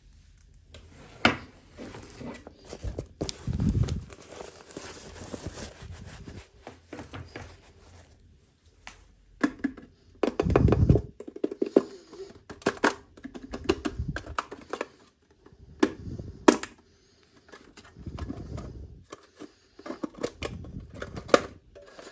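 Hands unboxing small plastic toys: irregular clicks, taps and knocks of plastic pieces and packaging with crinkly rustling, and a denser bout of rustling and knocking about halfway through.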